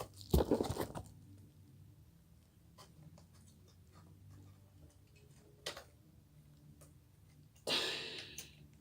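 A fire alarm pull station being handled: a thump and rubbing about half a second in, a single sharp click near the middle, and a short scraping rustle near the end, with quiet between.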